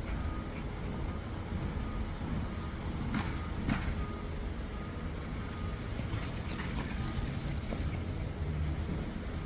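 Steady low rumble of background noise, with two short, sharp sounds a little over three seconds in.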